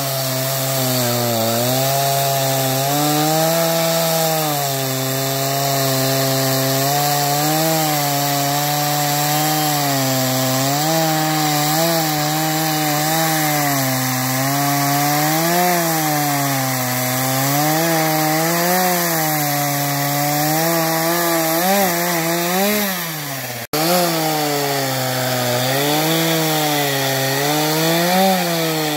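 Stihl MS 231 two-stroke chainsaw ripping along the grain of a wooden beam, the engine under load with its pitch sagging and recovering every second or two. The sound cuts out for an instant about three quarters of the way through.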